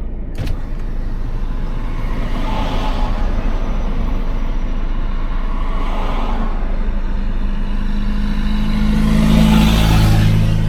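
Road vehicle noise: a steady low rumble with swells of passing traffic about every three to four seconds, and a low engine hum building near the end.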